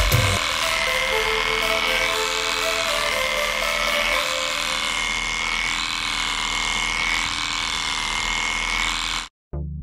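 Heiniger Xplorer cordless cattle clipper running steadily while shearing a cow's coat: a steady high whine over a hiss of cutting hair, which cuts off abruptly near the end.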